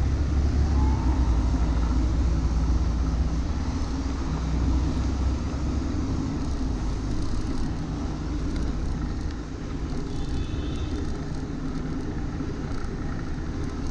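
Steady rumble of diesel buses and city traffic close by, mixed with wind rushing on the microphone and tyre hiss on the wet road from a moving bicycle. The low rumble is heaviest while beside the buses and eases about halfway through.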